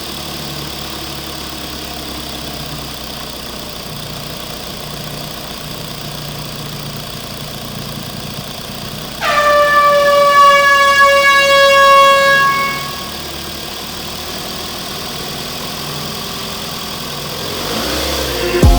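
A steady engine drone, then about nine seconds in a loud truck air-horn blast lasting about three and a half seconds, its pitch sagging slightly, before the drone carries on alone.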